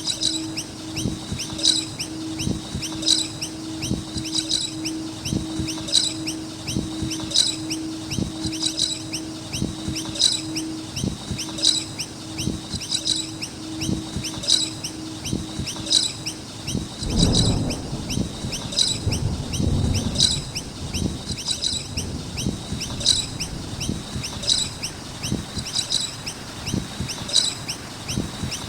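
A flock of noisy miners chirping and chattering continuously, with quick high calls repeating every second or so. A low rumble rises and fades about two-thirds of the way through.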